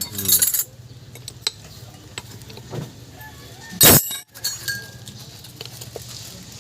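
Metal parts and hand tools clinking as a differential is taken apart, with scattered light clicks and one loud clank about four seconds in.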